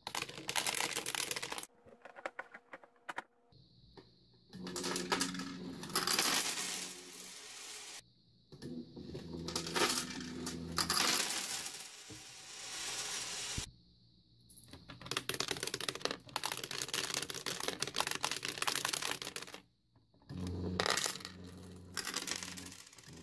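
Pennies clinking and sliding against one another as a desktop coin pusher's pusher shoves the pile, over the low steady hum of the stepper motor that drives it, its vibration carried through the case. The sound stops and resumes several times.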